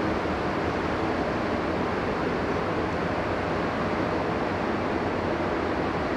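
Steady rushing air noise of a spray paint booth's ventilation fans and airflow, even and unchanging throughout.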